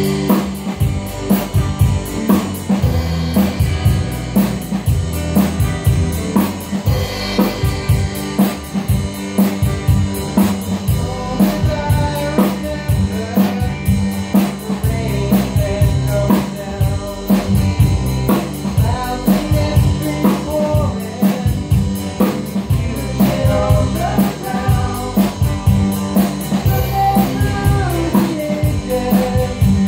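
Small rock band playing live in a room: drum kit keeping a steady beat on snare and bass drum under bass guitar and electric guitar.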